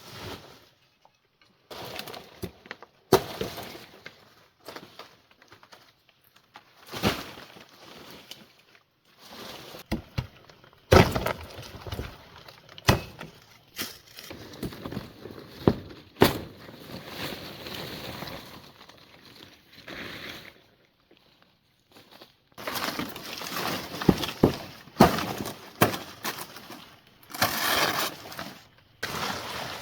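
Repair and clean-up work: irregular sharp knocks and crashes with scraping and clattering in between, busiest near the end.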